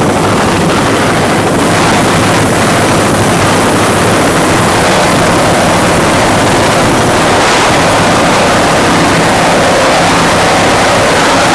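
Loud, steady engine drone that neither rises nor falls.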